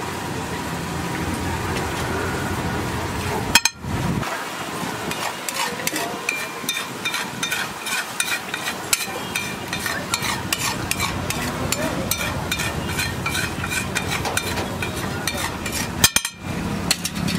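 Egg masala omelette batter sizzling in butter on a large flat tawa griddle, then a metal spatula scraping and clicking rapidly across the griddle as the batter is spread.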